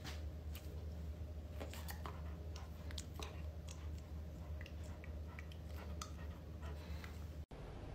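A young Rottweiler mouthing and nibbling a person's fingers, with faint scattered clicks of teeth over a steady low room hum.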